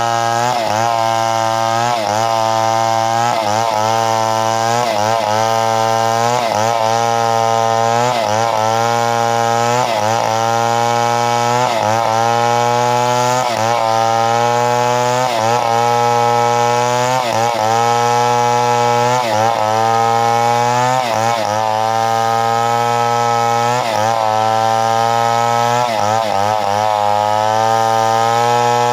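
Chainsaw running at high speed while cutting, its pitch dipping briefly and recovering about every second and a half as the chain loads and frees in the wood.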